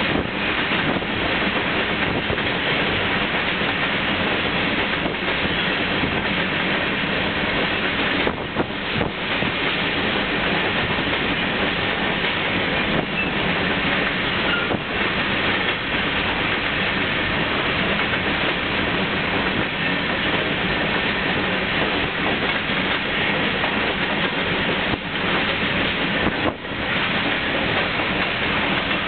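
Freight train of covered hopper cars rolling past close by: a steady, loud rolling noise of steel wheels on the rails.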